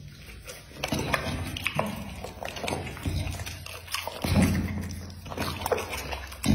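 Bully pit bull chewing and biting soft raw meat from a hand, with wet smacking and clicking mouth noises. It gives low rumbling grunts as it eats, loudest about four seconds in.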